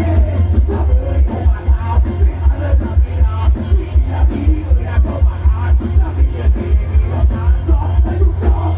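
Loud Thai dance music with a heavy, steady bass beat, played through a rot hae sound truck's loudspeaker stack.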